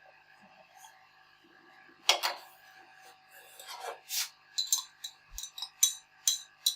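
A metal teaspoon in a cup of kahwa: a sharp knock about two seconds in, some scraping, then a run of quick ringing clinks against the cup near the end as it stirs.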